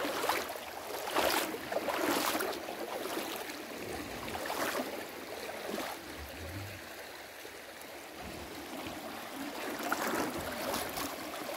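Shallow creek water running and rippling over a gravel and rock bed, with a few sloshing splashes from wading through it.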